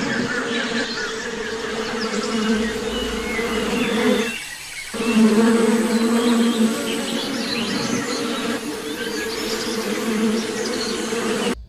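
Bee buzzing: a steady low hum that drops out for about half a second some four seconds in, then resumes.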